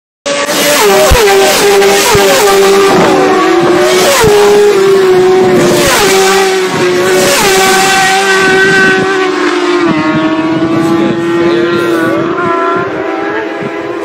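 Racing motorcycles flying past one after another at very high speed. Each engine note falls sharply in pitch as it goes by, with passes coming thick and fast for the first nine seconds or so and thinning out after that, over a steady drone.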